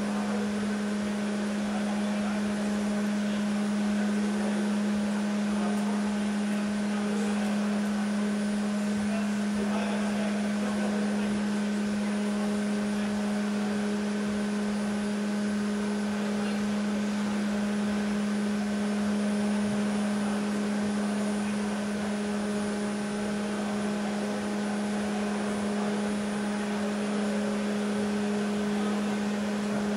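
Steady machine hum: a strong unchanging low tone with fainter higher tones over a light hiss.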